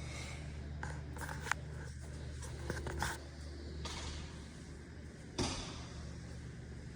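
A steady low hum with a handful of short clicks and knocks scattered through it, the loudest knock about five and a half seconds in.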